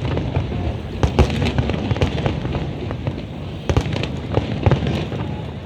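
Aerial fireworks going off: an irregular string of sharp bangs and pops over a steady low rumble.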